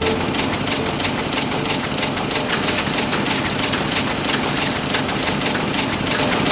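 Book-sewing machine in a bindery running: a steady machine noise packed with rapid, uneven clicking.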